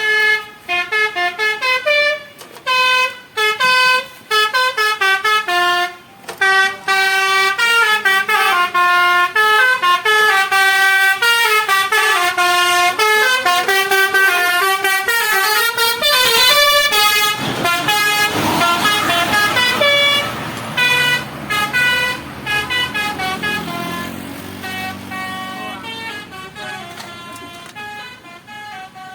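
Basuri 'telolet' multi-tone bus horn playing quick melodies of stepped notes, over and over. About two-thirds of the way through there is a loud rush of noise, and after that the horn tunes grow fainter.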